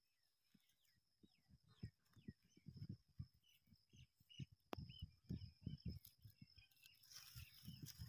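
Faint, high, repeated peeping calls of a young crane chick, with low thumps under them.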